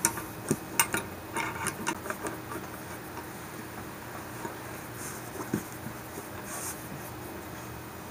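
Steel bolt of a Remington Model 11 shotgun being slid into its receiver by hand: several sharp metal clicks and a short scrape in the first two seconds, then faint, scattered handling noises.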